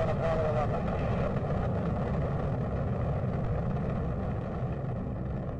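Deep, steady rumble of the Saturn V rocket's first-stage F-1 engines at liftoff, easing slightly near the end.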